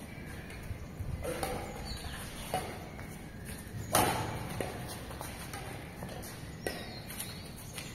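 Badminton rally: a few sharp racket strikes on a shuttlecock, irregularly spaced about a second or more apart, the loudest about four seconds in.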